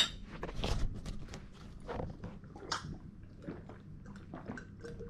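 A person gulping down a drink of water, opening with a sharp click and followed by a run of small, irregular swallowing and mouth noises.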